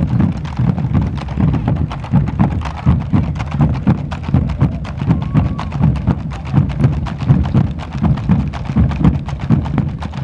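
Several bombo legüero drums beaten together in a fast, steady rhythm: deep strokes on the hide heads with sharp clacks of the sticks on the wooden rims.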